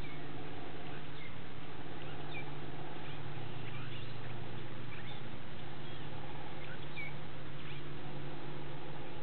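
Scattered short, high bird chirps over a steady hiss and a low hum.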